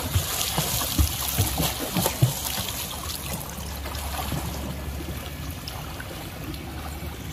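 Water splashing and churning as a child swims front crawl close by, arms and kicking feet breaking the surface. The sharpest splashes come in the first two seconds or so, then settle into a steadier wash of water.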